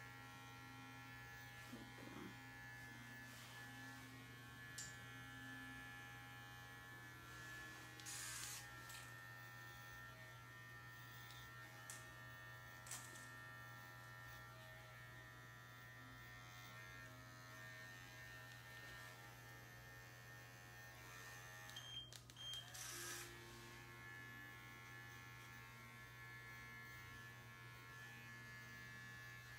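Electric dog grooming clippers running with a steady, faint hum while shaving a puppy's belly. A few brief rustling noises occur about 8 s and 22 s in.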